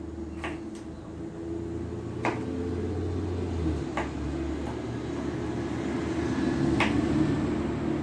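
A steady low mechanical hum, like a running motor, with four sharp knocks spread unevenly across it.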